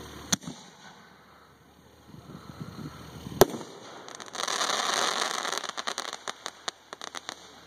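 Aerial firework shells bursting: a sharp bang just after the start, then a louder bang about three seconds in. This is followed by a couple of seconds of hiss and a quick run of crackling pops near the end.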